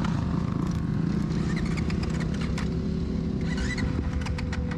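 A vehicle engine running steadily, with scattered clicks and knocks.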